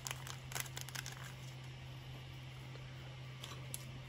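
Small clear plastic parts bag crinkling and crackling as it is handled and opened: a quick run of crackles in the first second or so, then two more crackles near the end.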